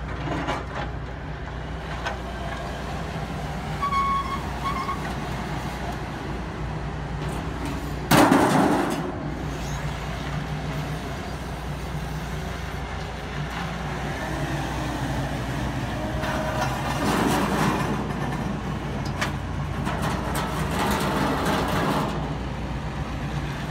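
Forklift engine running steadily as the forklift works alongside a flatbed trailer to unload sheet-metal pieces, with one loud bang about eight seconds in.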